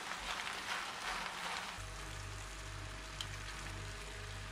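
A plastic spatula stirring creamy pasta in a frying pan, with a faint sizzle and light scraping, for about the first second and a half. Then the sound cuts abruptly to a steady low hum.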